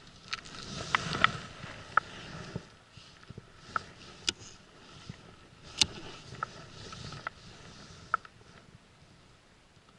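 Irregular sharp clicks and taps from a baitcasting rod and reel being handled while jigging the rig along the bottom, over a soft rushing wash that swells about a second in and again past the middle.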